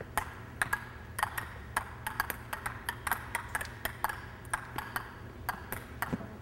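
Table tennis ball bouncing repeatedly on a racket held flat, alternating between the forehand and backhand rubbers: a steady run of light, sharp pocks, about two to three a second.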